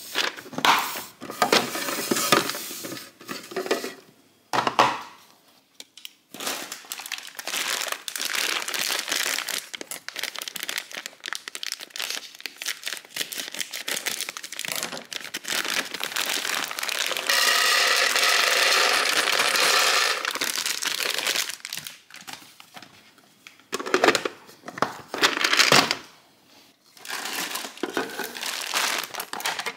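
Dry pasta rattling and pouring against a clear plastic storage canister, with a plastic pasta packet crinkling. There is one longer, steadier stretch of rattling about two-thirds of the way through.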